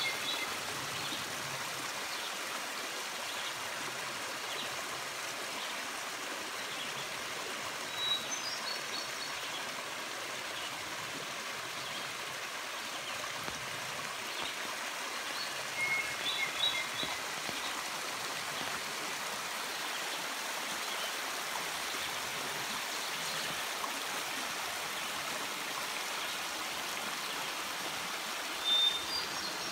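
A small rocky woodland stream running steadily over stones, with short high bird chirps three times: about eight seconds in, around sixteen seconds, and near the end.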